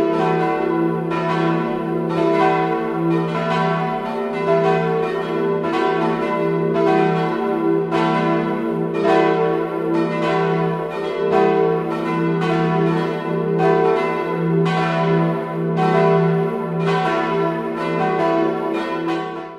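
Full peal of four swinging church bells, tuned e¹, f-sharp¹, a¹ and b¹, striking continuously in overlapping strokes about twice a second. Two of the bells were cast by Ernst of Lindau in 1692 and two by Bachert of Heilbronn in 1954.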